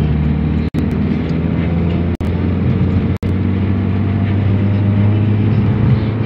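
Mitsubishi Lancer's carbureted four-cylinder engine and road noise droning steadily inside the cabin while driving, with its carburetor freshly overhauled. The low engine note drops a little about three seconds in. The sound cuts out for an instant three times.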